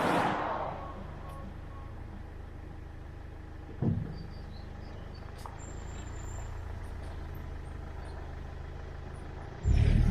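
Car engine running steadily with a low hum, with a rushing swell right at the start and a single knock about four seconds in. A loud rumbling noise starts near the end.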